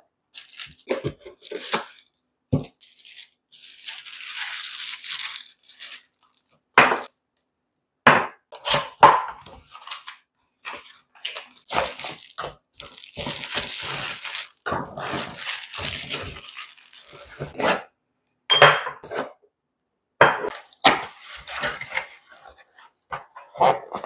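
Plastic wrapping crinkling and rustling as glass oil bottles are unwrapped and unpacked from a cardboard box, broken up by several short sharp knocks of the bottles and box being set down on the counter.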